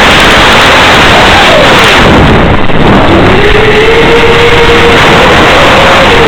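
FPV quadcopter's motors and propellers under loud hiss and wind noise. The motor pitch dips sharply about two seconds in, climbs back about a second later and then holds steady.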